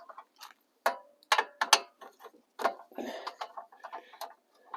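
Irregular clicks, clacks and a short rattle of a small engine's pull-start recoil starter being handled, its starter rope broken.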